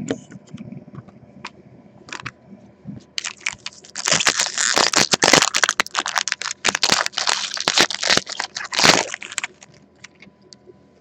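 Crinkly wrapper of a trading-card pack being handled and torn open, with a few light clicks first, then about six seconds of dense, loud crackling that stops suddenly.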